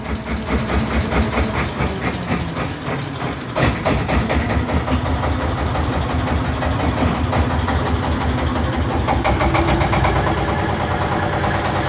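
A fishing boat's inboard engine chugging steadily with an even, rhythmic knock while the boat runs under way.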